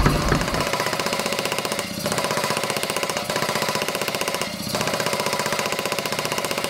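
Power hammer rapidly pounding hot railroad-spike steel on its anvil die, a fast, steady run of blows that breaks off briefly twice, about two and about four and a half seconds in.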